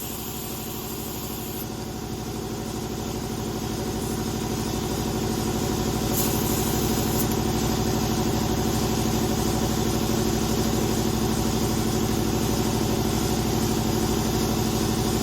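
Air compressor's motor and pump running steadily with an even hum, growing louder over the first several seconds. Two short hisses of air, near the start and about six seconds in.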